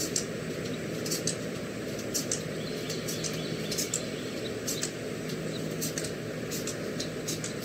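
Outdoor ambience: a steady background hiss and low hum, with short, high bird chirps scattered through it, about two a second at irregular spacing.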